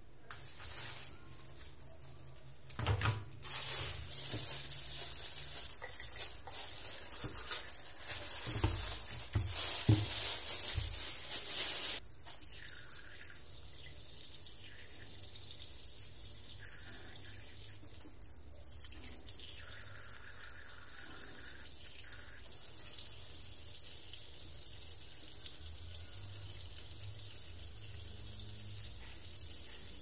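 Water running from a tap into a sink, splashing unevenly for several seconds and cut off suddenly about twelve seconds in; a faint steady hiss follows.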